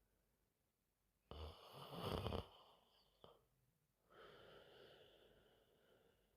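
A woman snoring in deep sleep: one loud, raspy snore about a second in, a short click, then a softer, longer breath.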